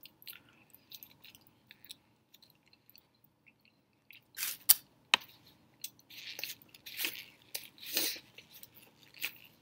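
Close-miked chewing of a raisin bagel with cream cheese and beef sausage: faint, scattered mouth clicks at first, then louder bursts of chewing from about four seconds in, with a sharp click about a second later.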